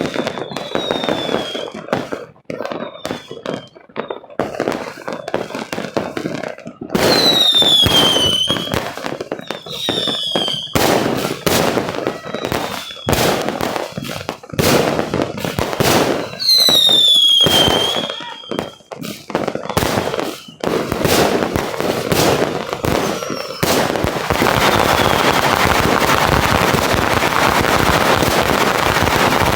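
Fireworks going off in quick succession: many sharp bangs and pops, with short whistles that fall in pitch, some long and some brief. In the last few seconds it turns into a dense, continuous crackling.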